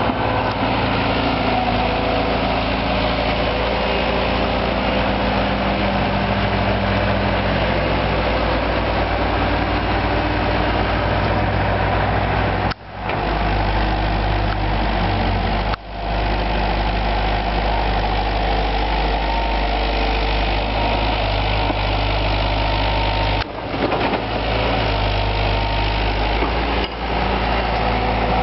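JCB JS130 tracked excavator's diesel engine running steadily as the machine works its arm and bucket. The sound cuts out briefly four times.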